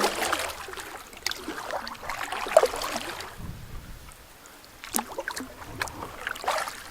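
Canoe being paddled: paddle strokes swishing and dripping in the water in surges every couple of seconds, with a few sharp knocks.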